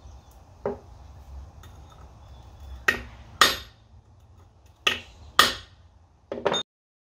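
A hammer rapping a brass punch held on a tight bolt of an outboard's lower-unit water-pump housing: sharp metallic strikes in quick pairs, each pair about two seconds after the last. It is shocking the seized bolt so that penetrating oil works into the threads. The sound cuts off suddenly near the end.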